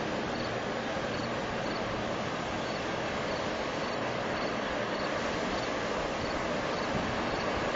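Marion 7800 walking dragline walking on its shoes, a steady, even mechanical noise from the machine as it steps along.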